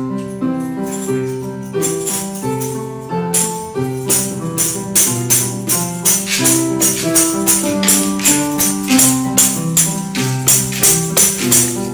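A digital piano played as a simple children's tune, with melody and low chord notes, accompanied by a shaker-like rattling percussion that keeps the beat and becomes stronger a few seconds in.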